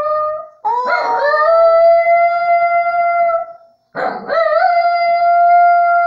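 A small dog howling: one howl trails off at the start, then two long howls follow with a short break between. Each starts with a quick rising wobble and then holds one steady pitch.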